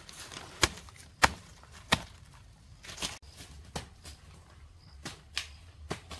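Wood being chopped: about seven sharp, separate blows, unevenly spaced at roughly one a second, the loudest three in the first two seconds.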